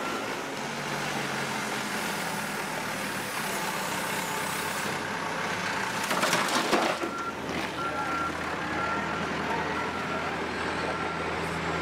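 Caterpillar earthmoving machine running at a rubble-clearing site, with a backup alarm beeping through the second half. A loud clatter of rubble comes about six seconds in.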